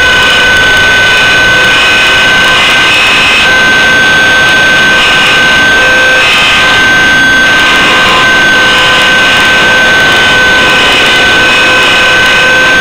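Align T-Rex 600 CF radio-controlled helicopter in flight, heard up close from a camera mounted on board. It makes a loud, steady, high-pitched mechanical whine that shifts slightly in pitch now and then.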